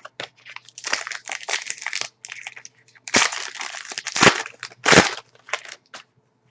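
Trading-card pack wrapper crinkling and tearing as a pack is opened and cards are handled, in rough rustling bursts with a few sharp crackles.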